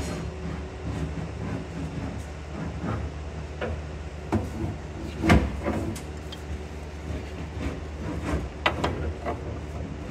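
Scattered clanks and knocks of hand-tool work as a wrench turns the nuts and bar of a combine's axle tie rod, the loudest about five seconds in and a quick cluster near the end, over a steady low hum.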